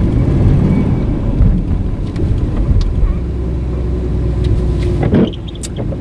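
Pickup plow truck's engine running under load while the truck is stuck in heavy wet snow, with a steady low drone and rumble. It is loudest in the first few seconds and drops off sharply a little after five seconds in.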